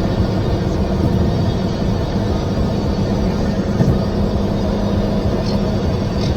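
Steady low rumble of vehicle road noise.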